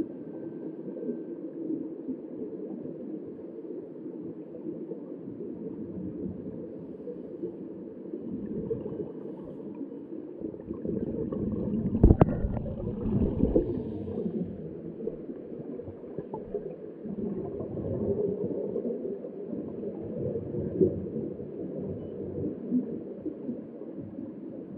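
Muffled underwater rumble and gurgling of scuba divers' exhaled bubbles. About halfway through there is a single sharp knock, as a diver comes up against the camera, followed by a couple of seconds of louder bubbling.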